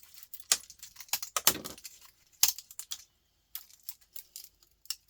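Irregular clicks and clatter of small electronic scrap, a circuit-board transformer and its parts, being handled and pried off with pliers.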